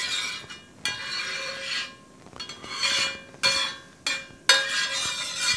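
A metal slotted spatula scraping across the bottom of a cast iron crepe pan, spreading melted butter, in about five back-and-forth strokes with short pauses between them.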